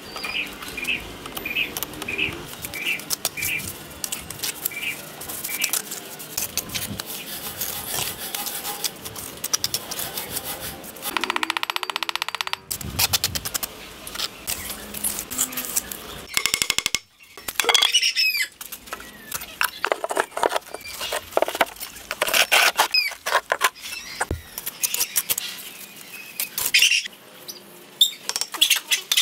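A steel mason's trowel scraping and tapping on wet cement mortar and bricks, in a run of short scrapes and knocks. Faint bird chirps come in the first few seconds, and a brief steady buzz comes about eleven seconds in.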